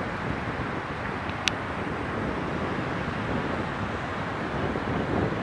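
Steady wind noise on the microphone over surf washing on a sandy sea beach, with one sharp click about a second and a half in.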